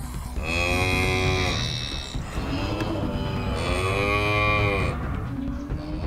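Cow mooing twice, two drawn-out calls of about a second and a half each.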